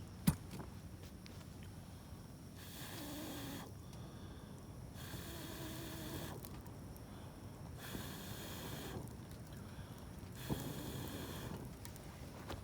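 A person's slow breaths, one about every two and a half seconds, each lasting about a second and rasping like snoring, with a single sharp pop just after the start.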